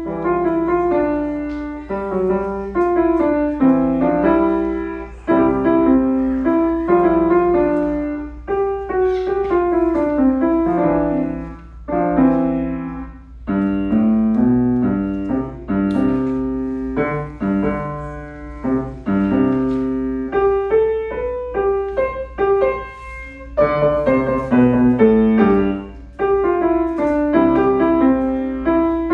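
Steinway & Sons grand piano played through a short beginner's recital piece, chords and melody notes in repeated phrases with brief breaks between them.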